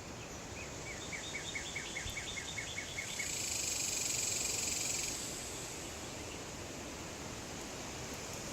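A songbird sings a quick run of about a dozen short, down-slurred whistled notes, followed by a high buzzing hiss lasting about two seconds, over a steady breeze.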